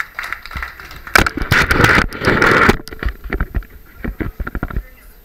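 Camera handling noise: rubbing and bumping on the microphone as the camera is picked up and carried through the room, loudest about a second in, then a scatter of sharp knocks.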